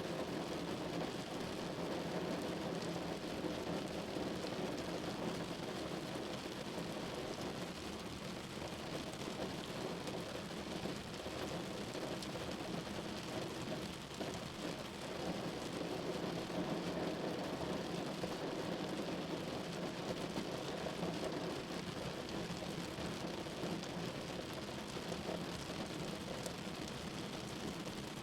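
Steady rain falling, a continuous even hiss with fine scattered drop ticks.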